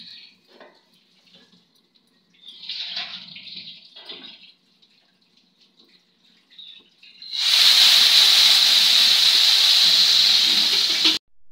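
Water splashed onto a hot tawa sizzling loudly, the sign that the griddle is hot and being readied for dosa batter. The hiss starts about seven seconds in and cuts off suddenly near the end, after a few soft rubbing sounds of the tawa being wiped.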